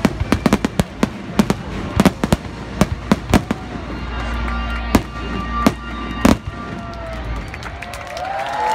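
Aerial firework shells bursting in a rapid volley of sharp bangs for about three and a half seconds, then a few single bangs roughly a second apart, with music playing underneath.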